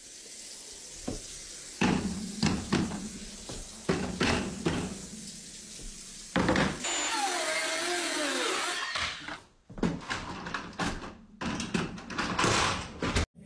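A wooden cutting board knocking and clattering against the kitchen counter and a dishwasher rack, with a steady rush of running water for about two and a half seconds near the middle.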